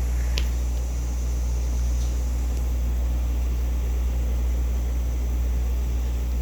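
Steady low electric hum of running aquarium equipment, with one faint tick about half a second in.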